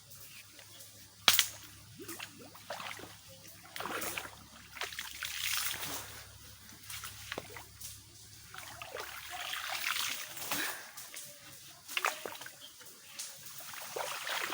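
Shovel digging in wet mud and shallow water: irregular sloshing and splashing scoops, with one sharp knock about a second in.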